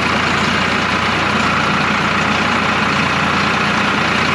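A vehicle engine running steadily under a continuous rushing noise, with no change in pace.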